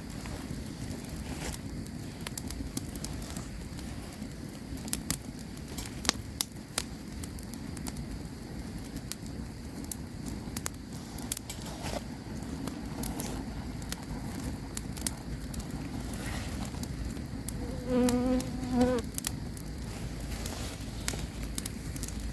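Campfire crackling with scattered sharp pops over a steady low hiss, and an insect buzzing past for about a second near the end.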